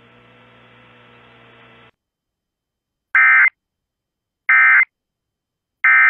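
A faint steady hum cuts off about two seconds in. Then come three short, loud bursts of Emergency Alert System data tones, identical and about a second apart: the end-of-message (NNNN) header that closes a tornado warning broadcast.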